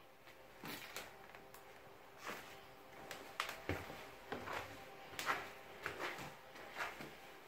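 Footsteps and light knocks from a phone being carried through a room, about one or two a second and unevenly spaced.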